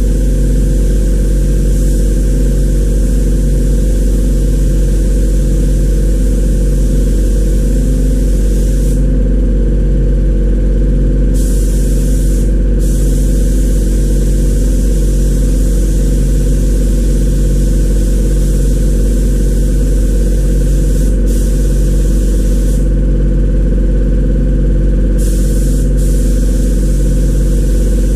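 Air compressor running steadily with a low hum, while a hose-fed paint spray gun hisses in spells, cutting off for a couple of seconds about nine seconds in, briefly near the middle, and again for about two seconds near the end.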